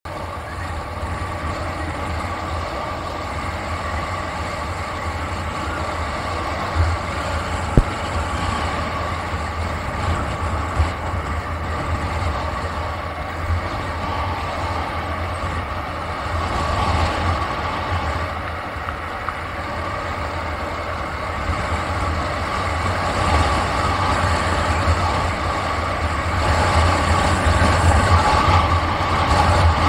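Steady road and wind noise of a vehicle driving along a paved city road, with a constant low rumble. There is a single brief knock about eight seconds in, and the noise grows a little louder near the end.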